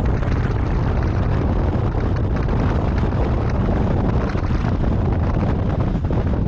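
Motorcycle cruising steadily at about 27 mph, a steady low rumble of engine and road noise under heavy wind buffeting on the microphone.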